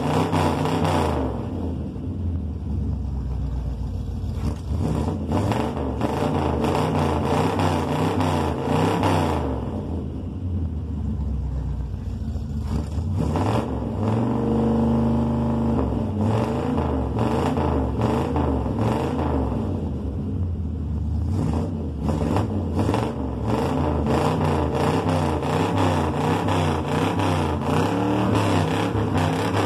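1953 Chevrolet Bel Air's engine being revved hard and repeatedly, its pitch swinging up and down. It drops back to a lower, steadier run three times between rounds of revving.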